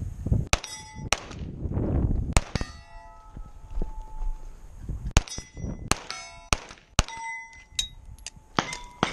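A string of pistol shots at steel plates, each hit answered by the ring of a steel target. There are a few shots early on, a pause of nearly three seconds, then a quicker run of shots.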